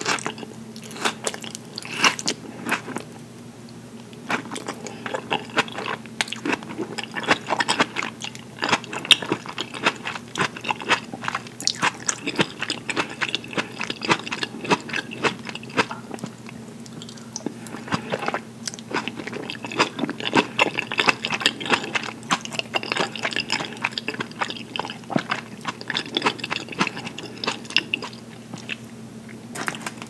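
Close-miked chewing of fresh mozzarella and tomato slices: wet, squishy mouth sounds with many fine crackling clicks, easing off briefly twice between bites.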